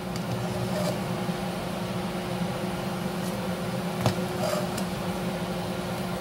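Water at a rolling boil in a pot under a steady low appliance hum, with a slotted metal spoon clinking once against the pot about four seconds in.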